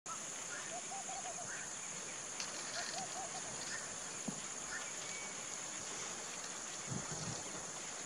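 Outdoor ambience of a steady high-pitched insect drone, with a bird giving two short series of quick, rapidly repeated notes, about one and three seconds in.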